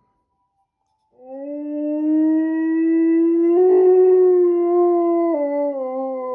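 Husky-type dog howling: one long howl starts about a second in and holds a fairly steady pitch, then drops a step lower near the end and goes on sliding down.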